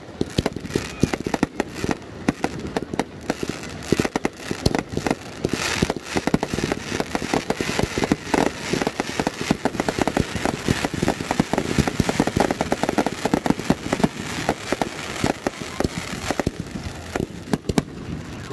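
Fireworks finale: firework cakes and aerial shells firing and bursting in rapid succession, a dense unbroken stream of sharp bangs and crackles that thins a little near the end.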